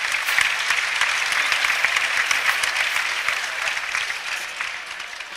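Audience applauding, dying away over the last couple of seconds.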